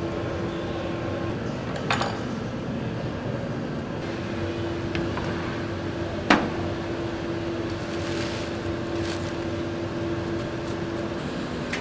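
Steady workshop machinery hum with a constant tone, broken by two sharp knocks, the second and louder one a little past six seconds in.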